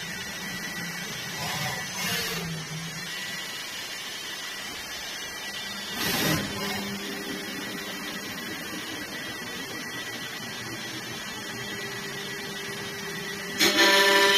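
A CNC wood turn-milling machine running with a steady electrical hum and fixed whine, with a couple of brief noises. Near the end a much louder pitched whine starts, as the tool begins cutting the wood.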